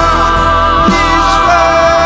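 Worship band playing gospel music with sung, held notes with vibrato over a steady bass.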